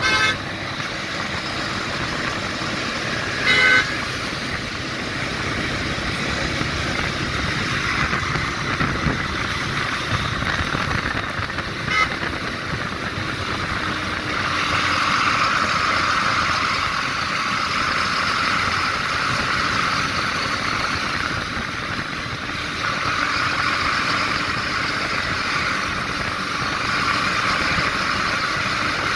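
Highway traffic noise heard from a moving motorcycle riding alongside a multi-axle coach, with short vehicle-horn toots right at the start and about three and a half seconds in, and a brief one about twelve seconds in. A louder steady rushing noise sets in about fifteen seconds in.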